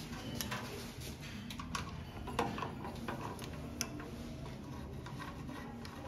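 A few scattered light clicks and taps of a screwdriver working at the screws inside the open metal case of an electric rim door lock, over a faint steady hum.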